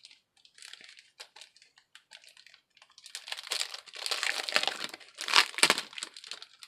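Packaging crinkling as a card-kit bundle is handled and opened: a few light crackles at first, then a denser, louder stretch of crinkling and rustling from about halfway through.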